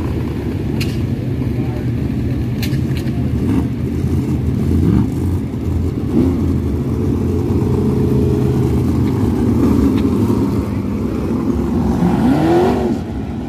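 Several dirt sprint cars' V8 engines running together on the track, a steady mix of engine notes. The engines rev up a few times, at about five seconds, six seconds and near the end.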